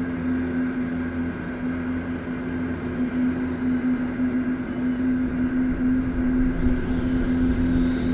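Steady droning soundscape from a sound-installation recording: a single low hum held throughout over a rumbling, noisy bed, with no clear events.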